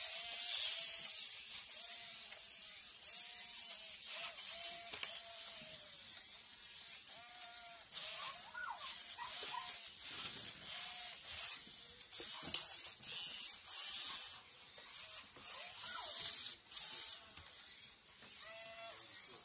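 Toy robot dogs moving about: small motors and gears whirring in short bursts with clicking, over a run of short repeated electronic tones and a few rising electronic chirps from the robots.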